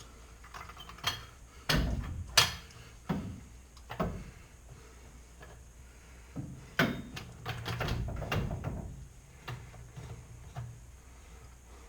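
Irregular metal clanks and knocks from a jack being set under the truck and worked, with several loud bangs in the first four seconds and a busier cluster around the middle.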